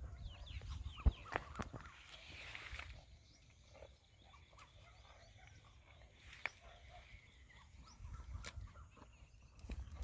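Birds chirping in short rising and falling calls, busiest in the first few seconds, with a few sharp snaps and crunches as a Tharparkar cow crops and chews leafy plants.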